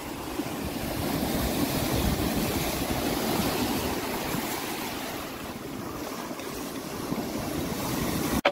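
Water rushing and breaking along the hull of a Mystic 60 sailing ketch under way, mixed with wind; a steady rushing noise that cuts off abruptly near the end.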